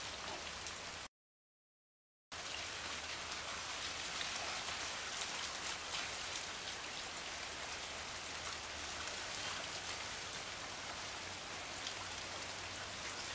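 Steady rain falling on standing floodwater and wet pavement, a continuous hiss full of fine drop ticks. The sound cuts out completely for about a second near the start.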